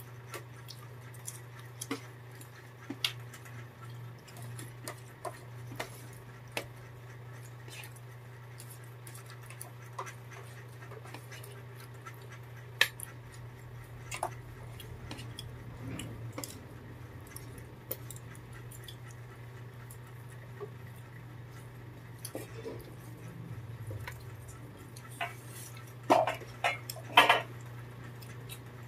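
Spoons and forks clicking and scraping on plastic plates while people eat, in scattered light clinks over a steady low hum, with a louder clatter near the end.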